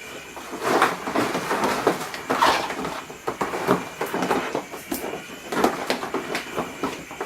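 Home-brewing gear being handled: a string of irregular knocks, clatters and scrapes as plastic equipment is moved about and set down.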